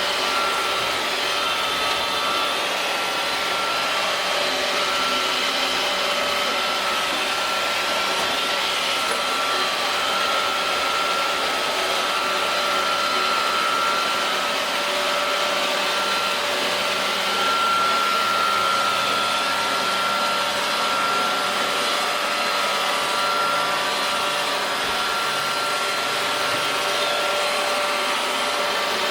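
iRobot Roomba robot vacuum running steadily while cleaning a door mat: a constant motor whine over the rush of suction and brushes.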